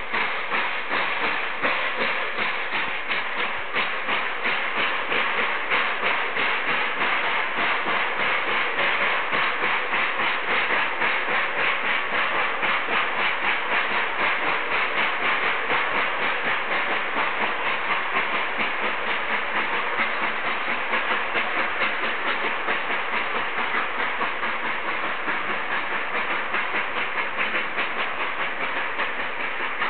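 Class 498 'Albatros' steam locomotive running with its train, hissing steam and wheels clattering in a steady rhythm on the rails.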